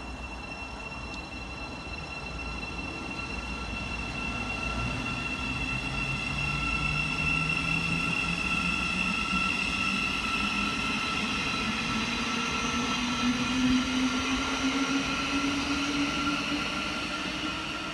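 Thameslink Class 700 electric multiple unit pulling away, its traction motors whining in a tone that climbs steadily in pitch as the train gathers speed, with a fainter high whine rising alongside. It grows louder towards the end, then eases.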